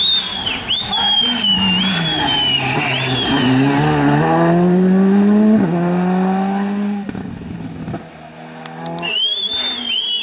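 A Skoda Fabia R5 rally car's turbocharged four-cylinder engine and tyres, squealing through a hairpin and then accelerating hard away with a gear change as the engine note fades. About nine seconds in, the tyres of the next rally car start squealing into the corner.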